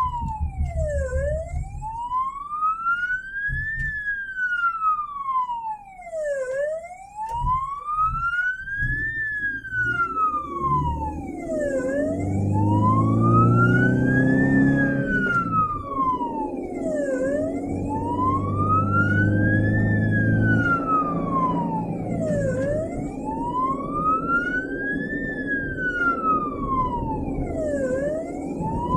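Ambulance siren on a slow wail, its pitch rising and falling about every five seconds, heard from inside the moving ambulance. Engine and road noise run underneath and grow louder in the middle.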